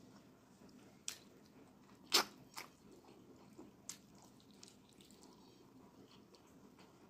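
Close-miked wet eating sounds of a person eating fufu and egusi soup by hand: soft squishing with a few sharp wet smacks between about one and four seconds in, the loudest about two seconds in.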